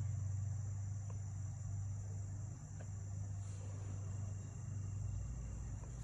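Crickets trilling steadily at a high pitch over a steady low hum, with a couple of faint light clicks.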